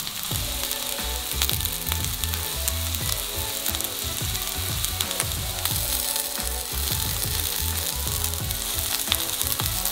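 Panko-breaded chicken tenderloins shallow-frying in a small amount of oil in a frying pan: steady sizzling with many small pops and crackles.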